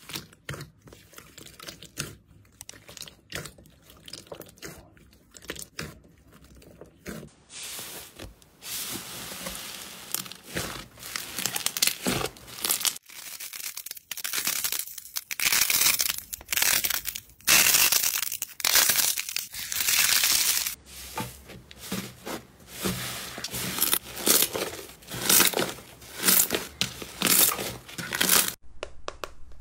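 Slime and soft clay being squeezed, pressed and kneaded by hand: irregular sticky crackles and tearing sounds, fainter at first and louder and denser from about eight seconds in.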